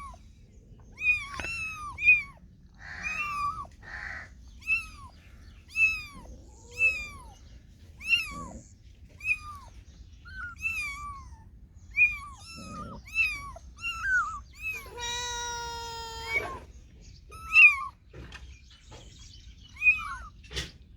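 Cats and kittens meowing over and over: short high meows that fall in pitch, one every second or so, with one longer, steady meow about two-thirds of the way through and a sharp click near the end.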